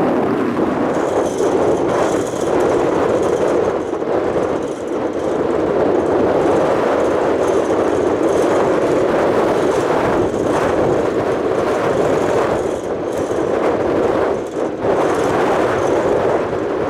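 Steady, loud rumble of jet airliner engines mixed with gusty wind, the level dipping and swelling now and then.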